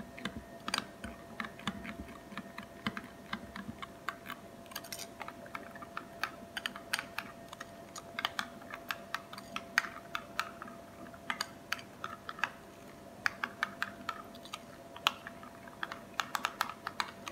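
A spoon clicking and scraping against a ceramic bowl while mixing coleslaw: irregular sharp clicks several times a second.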